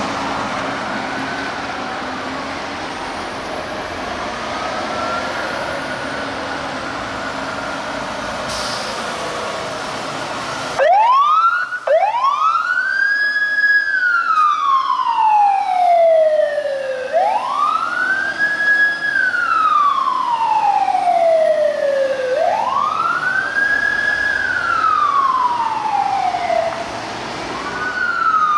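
Fire engine siren wailing over road traffic, faint at first. About eleven seconds in it turns suddenly loud and close, each cycle sweeping up quickly and falling away slowly, about every five seconds. Near the end a second, faster siren cuts in.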